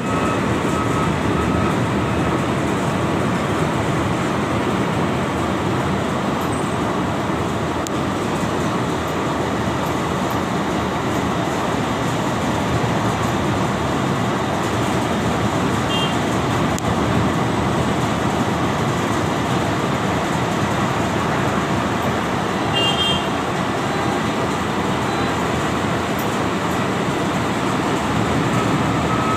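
Concrete mixing station machinery running steadily, a loud, even mechanical noise that hardly changes in level.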